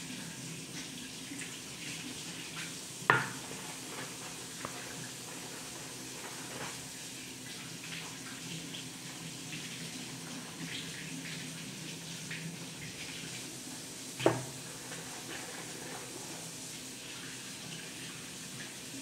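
Kitchen sink tap running steadily while hands work under the water, with two sharp knocks, about three seconds in and again about fourteen seconds in.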